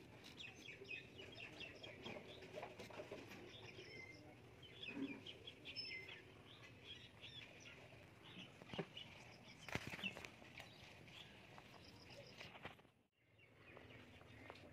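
Faint small birds chirping in the background, short scattered chirps throughout, with a few sharp clicks around two-thirds of the way through. The sound drops out briefly near the end.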